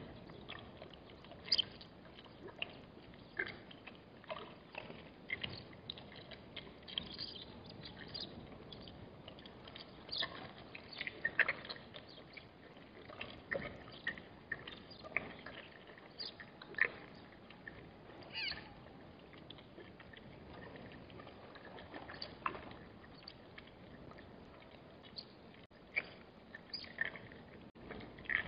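Scattered short, high squeaks and chirps of animal calls, coming irregularly about once a second, faint over a quiet background.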